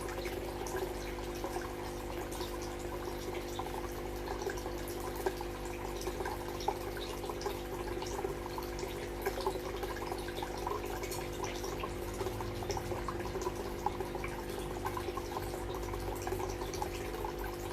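Water trickling and dripping steadily into a fish tank, with a constant low hum running underneath, as from the tank's pump or aerator.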